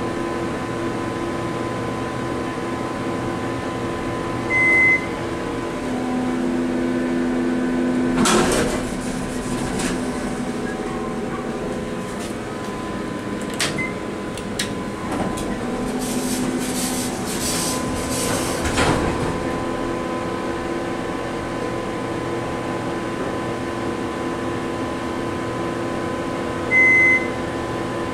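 Steady hum of an Otis Series 1 hydraulic elevator's Pratt & Whitney cab fan, with a short electronic beep about five seconds in and another near the end. Twice, about eight and sixteen seconds in, the elevator doors run with a louder whooshing rattle, and a button clicks between them.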